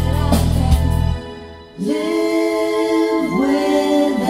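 Choral music playing, probably as test playback through the repaired amplifier. Deep bass notes drop out about a second in, and after a brief lull held sung notes come in.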